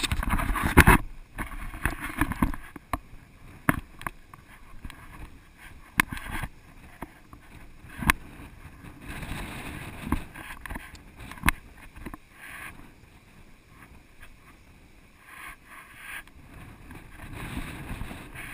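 Wind buffeting an action camera's microphone in uneven gusts, with about seven sharp knocks scattered through.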